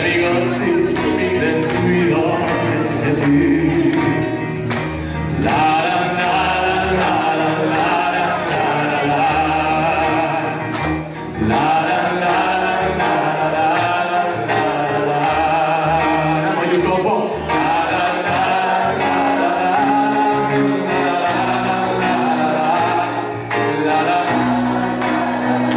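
Live pop song: a male voice singing held, wavering notes over electronic keyboard accompaniment.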